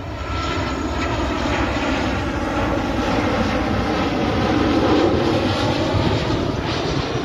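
Jet noise from a Boeing 737-800's CFM56-7B turbofan engines as the airliner passes low overhead on final approach with its gear down. The steady rush grows louder to its peak about five seconds in, then eases slightly.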